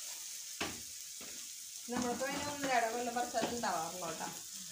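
Garlic and green chillies sizzling in hot oil as they are sautéed and stirred in a pan: a steady sizzle, with a single knock about half a second in. A voice is heard over it from about two seconds in.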